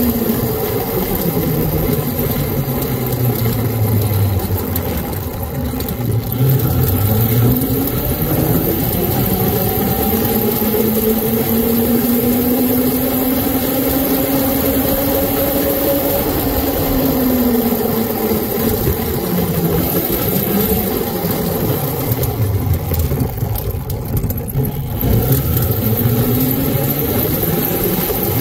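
Whine of a converted mini scrambler's 1800 W, 52 V electric motor, its pitch gliding up and down several times as the bike speeds up and slows, over steady wind and road rush.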